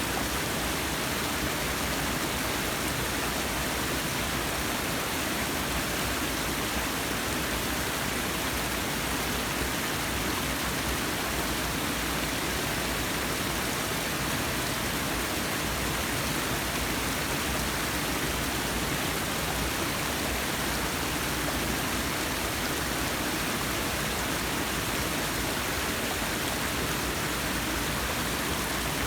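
Forest waterfall: water falling and splashing in a steady, even rush.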